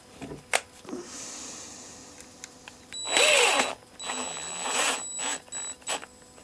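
Small powered screwdriver running in two short bursts of about a second each, with a thin high whine, driving the small cover screws back in; a few light clicks of handling around them.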